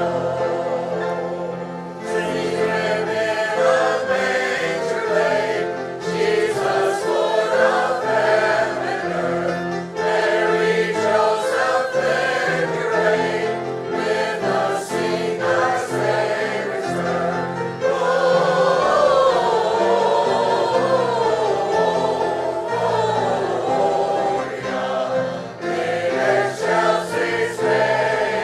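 Church congregation singing a Christmas carol together: many voices in chorus over a steady instrumental accompaniment whose chords change every second or two.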